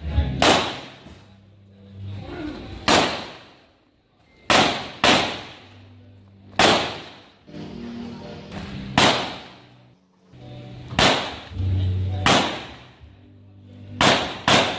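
Rock Island Armory Tac Ultra FS HC pistol firing about ten shots during a practical-shooting course of fire, singly and as quick pairs about half a second apart, each shot with a short echo off the range walls.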